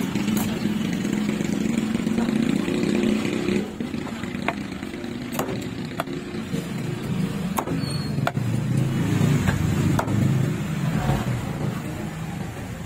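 A large knife chopping through red snapper on a wooden log block: several sharp chops at uneven intervals. Under them runs the steady hum of passing motorcycle and vehicle engines.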